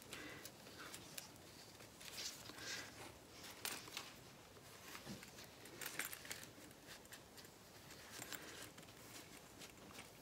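Faint handling noises: soft rustles and scattered light clicks as a sewn fabric-and-vinyl zipper panel is worked by hand and its corner is poked out with a pencil.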